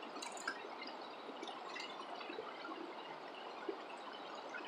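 Shallow rocky river running over stones: a steady rush of water with small splashes and a few sharp clicks about half a second in.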